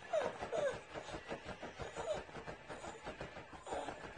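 Small flat-faced dog whining in short falling whimpers, a few in the first second and one more about two seconds in, with quick soft breaths between them.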